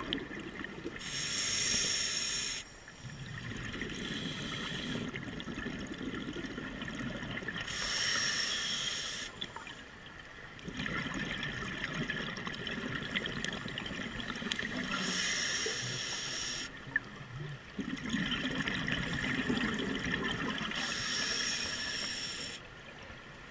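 Scuba diver breathing through a regulator underwater: four hissing inhalations, each followed by a longer burble of exhaled bubbles, about one breath every six seconds.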